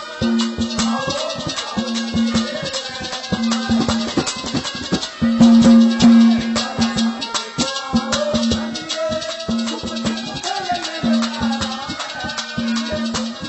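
Haryanvi ragni folk music in an instrumental stretch: fast, dense percussion with rattles, a steady held drone note, and a wavering melody line above it.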